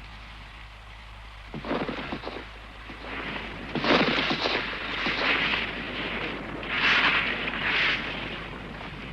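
Thunderstorm sound effects: a quiet start, then thunder cracking and rumbling in several surges over rain, loudest about four seconds in and again near seven seconds.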